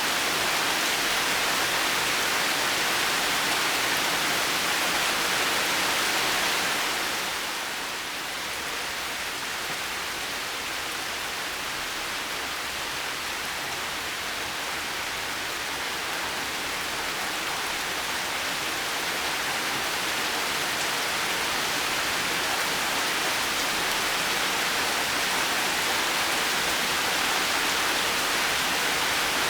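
Heavy rain falling steadily as an even hiss. It eases a little about seven seconds in, then slowly builds back to full strength.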